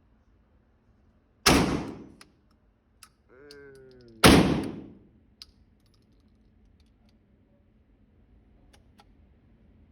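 Two shots from a Rock Island Armory VR80 semi-automatic 12-gauge shotgun, about three seconds apart, each a sharp blast that rings off briefly. Just before the second shot there is a short pitched sound that falls slightly, and faint clicks follow near the end.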